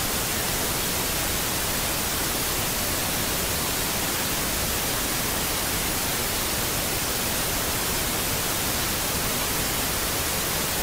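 Steady, even hiss like static, unchanging throughout, with no crackles or pops.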